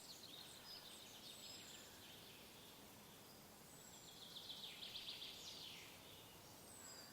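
Faint early-morning forest birdsong: several birds give short high whistles and chirps, with a fast trill from one bird about four seconds in, over a soft background hiss.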